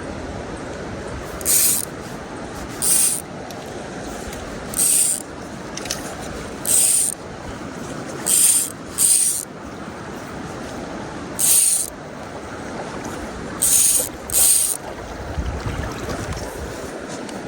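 Fly line swishing through the air in repeated false casts with a dry fly, about nine short high hisses, some in quick back-and-forth pairs. Underneath, a mountain stream runs steadily.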